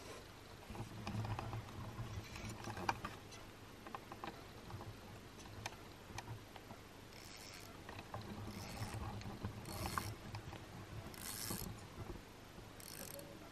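Spinning fishing reel being handled while the line is rigged: faint, irregular mechanical clicking and rattling, with short scrapes of hand and line handling.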